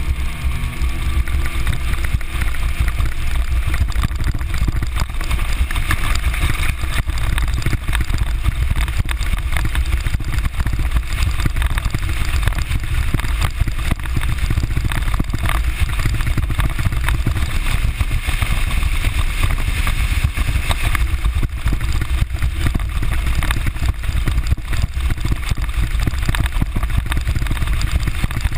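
Aluminium bass boat running under power across choppy water: a steady, heavy rumble of wind buffeting the bow-mounted camera, mixed with the hull's rush through the chop and the outboard motor underneath.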